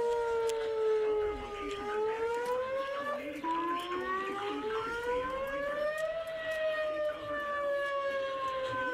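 Whelen WPS-2905 electronic siren sounding a wail: a tone made of several pitches falls, climbs for about four seconds, then slowly falls again. The tone breaks and jumps about a third of the way through. This is a tornado warning signal.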